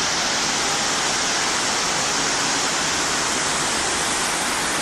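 Indoor fountain water running steadily into a basin, an even rushing hiss that does not change.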